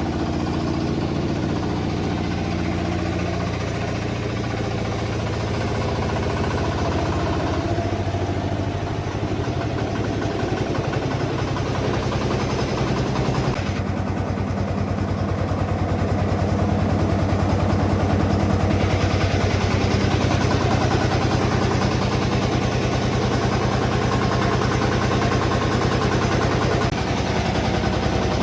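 Large horizontal bandsaw sawmill running with a steady, engine-like drone that shifts in pitch a few times: about a quarter of the way in, near halfway, and near the end.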